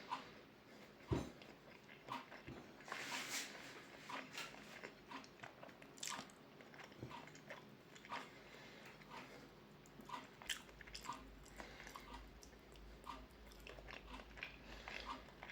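A person eating omelette: chewing and biting with many small wet mouth clicks, and one sharper knock about a second in.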